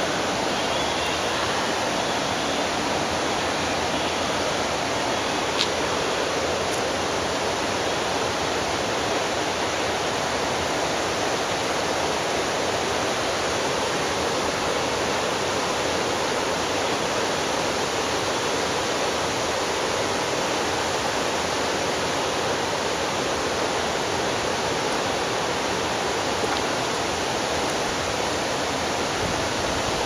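Steady rush of a mountain river flowing over rocks, even and unbroken.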